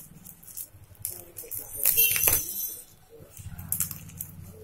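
Fidget spinners being handled, with sharp clicks and rattles that are loudest about two seconds in. A low steady hum starts about three and a half seconds in.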